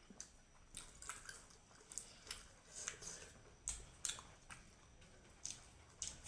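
A person chewing food with wet mouth smacks: short, crisp clicks about once or twice a second, faint.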